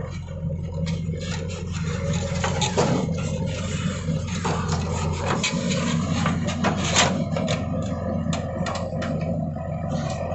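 A heavy diesel engine runs steadily, with frequent short scrapes and knocks from a backhoe loader's bucket working soil.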